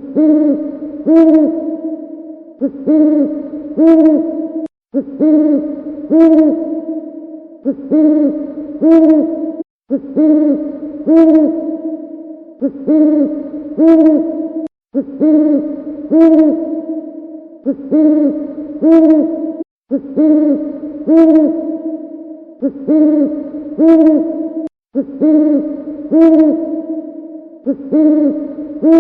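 Owl hooting in a looped recording: the same phrase of several hoots repeats about every five seconds, each repeat cut off by a brief silent break.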